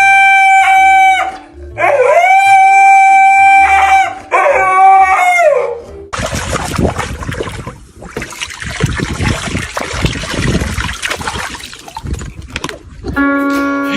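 A dog howling three times in long, steady-pitched howls, each rising at the start and falling away at the end, over quiet background music. Then about seven seconds of a noisy, crackling rush, with piano music coming in near the end.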